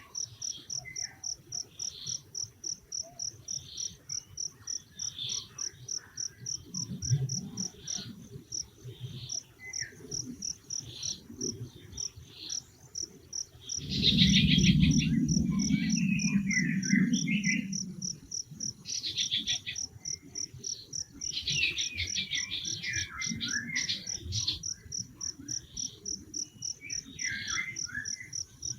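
An insect chirping steadily at a high pitch, about three pulses a second, with scattered bird calls. A louder noisy stretch of about four seconds comes near the middle.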